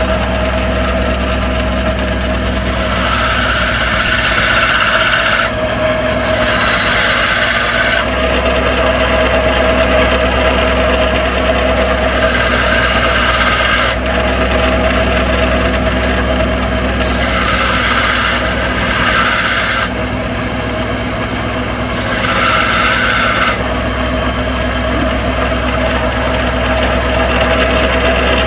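Metal lathe running steadily while a metal cable fitting is turned down, a constant motor hum with several stretches of brighter hiss that come and go as the tool cuts.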